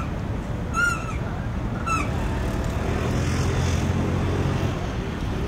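Waterfront ambience of wind and a low rumble of engines, broken by two short high chirps about a second apart near the start. A low steady engine drone rises in the middle and fades before the end.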